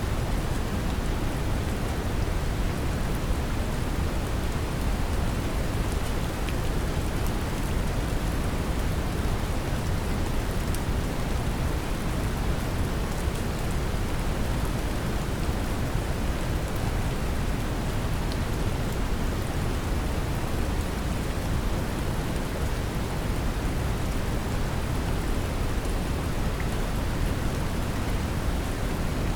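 Steady brown noise, a deep even rumble-like hiss, blended with gentle rain, with faint scattered drop ticks.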